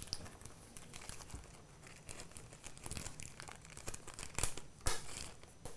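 A small plastic baggie crinkling and tearing as it is worked off the end of a wire, in faint scattered crackles with a few sharper ones in the second half.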